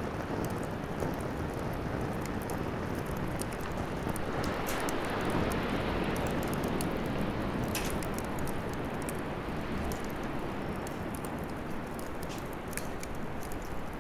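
Wood fire burning: a steady rush of flame with scattered small crackles and pops, swelling a little louder for a few seconds near the middle.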